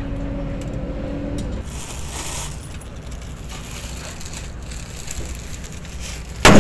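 A plastic bag being handled and rustled over a steady low rumble, with a loud sudden noise near the end.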